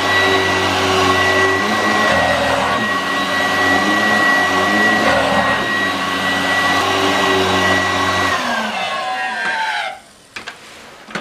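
Vorwerk VK 117-1H upright vacuum cleaner running with its powerhead on carpet, a steady whine over the motor. About eight seconds in it is switched off and the motor winds down, falling in pitch over a second or two, followed by a few faint clicks.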